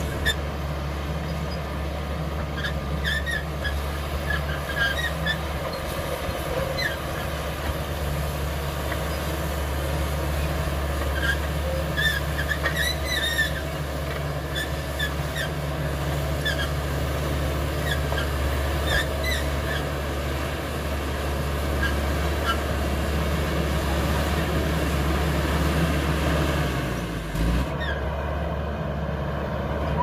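CAT D5K XL crawler bulldozer's diesel engine running steadily under load as the machine pushes soil, with short high squeaks scattered over it. Near the end the engine note dips briefly.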